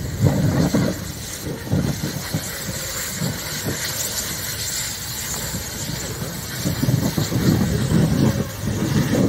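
A large tractor fire burning: a continuous rushing noise with irregular surges, louder over the last couple of seconds.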